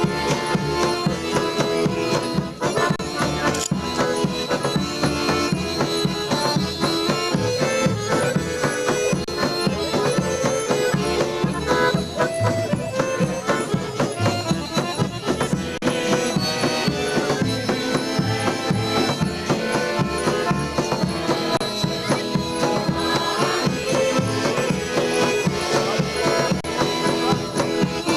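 Live Serbian folk dance music for a kolo, with an accordion carrying the melody over a hand drum keeping a steady beat.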